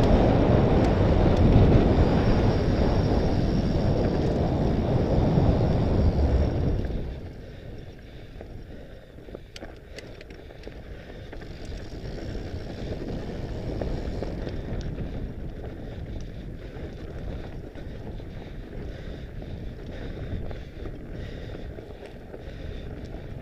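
Wind buffeting the onboard camera's microphone on a fast fat-bike descent, then, about seven seconds in, dropping to a much quieter ride: the Mondraker Panzer fat bike's tyres rolling over loose stones, with small clicks and knocks from the bike over the rough ground.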